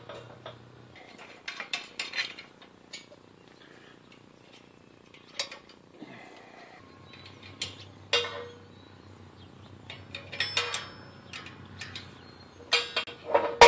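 Steel parts and hardware of a hydraulic shop press clinking and knocking together as it is assembled by hand: scattered light metallic taps, with a louder ringing clang near the end.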